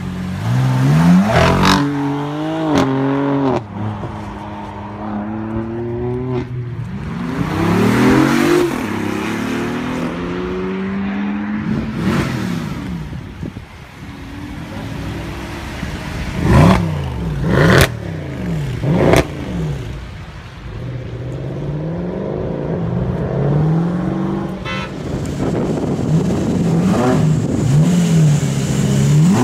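Sports car engines revving and accelerating away one after another, first a BMW M4's twin-turbo straight-six and later a Mercedes SL AMG, the engine notes sweeping up and down as they rev and shift. There are several sharp cracks about two-thirds of the way through.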